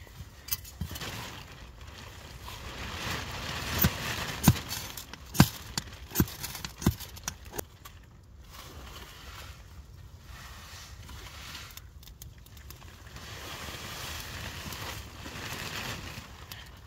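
Knife spine struck down a ferro rod (fire steel) again and again, a series of sharp scrapes over the first seven seconds or so, to throw sparks into dry grass tinder. After that comes quieter rustling of dry grass as the tinder catches.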